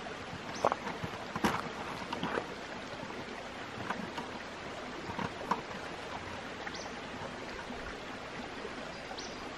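Wire hardware cloth being pressed and folded over a plastic bucket by hand: scattered light clicks and taps of mesh against plastic over a steady hiss.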